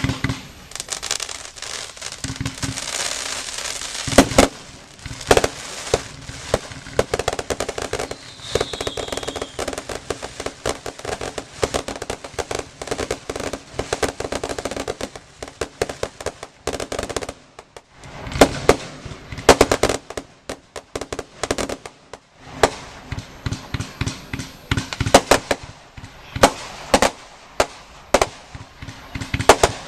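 Class F2 consumer fireworks going off: rapid bangs and crackling, with a dense crackling stretch in the first few seconds and loud single reports scattered through. A short falling whistle sounds about a third of the way in.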